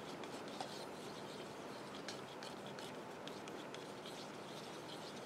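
Faint, irregular scraping and ticking of a stirrer against a small plastic cup while a thick mix of asphaltum and boiled linseed oil for japanning is stirred.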